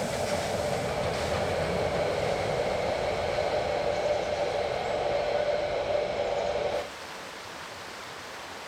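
Narrow-gauge Brockenbahn train passing, a steady running sound with a held tone through it. About seven seconds in it cuts off abruptly to a quieter, even rushing noise.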